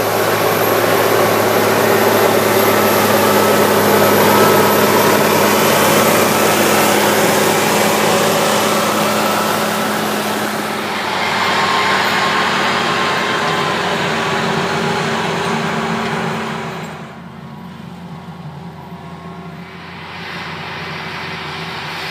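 Case IH tractor's diesel engine running steadily under load while pulling a tandem disk harrow through the field. About seventeen seconds in the sound goes quieter and duller.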